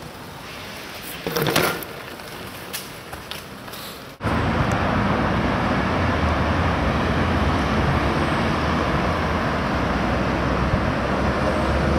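Steady loud rushing noise with a deep rumble, cutting in abruptly about four seconds in after a quieter stretch of outdoor background.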